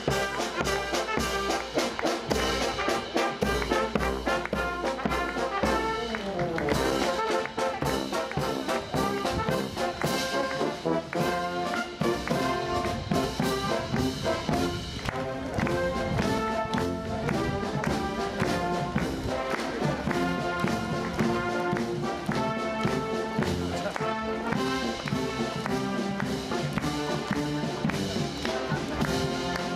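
A naval marching band playing a march: brass, horns among them, carry the tune over a steady drum beat.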